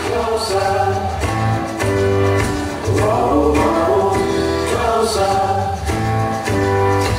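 Music with singing, over steady bass notes.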